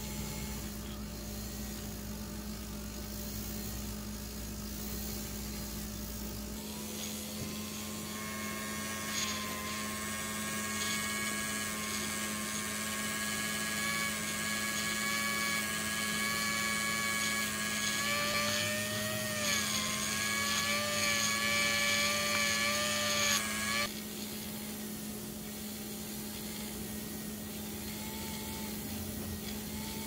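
Slot car tire truer's small electric motor running steadily, spinning front tires against sandpaper to true them. Several seconds in, a higher whine with a grinding hiss joins as the rubber is held onto the sandpaper; it wavers briefly, then cuts off abruptly a few seconds before the end, leaving the motor's steady hum.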